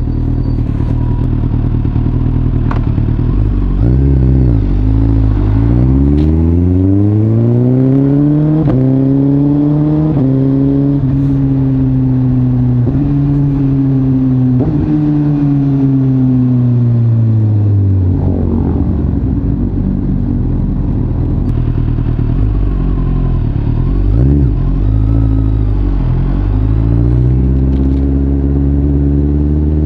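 Suzuki GSX-S1000 inline-four with an Arrow aftermarket exhaust accelerating through the gears, its pitch climbing and dropping back at each upshift. It holds a steady cruise, eases off to a low idle around the middle, then pulls away again near the end.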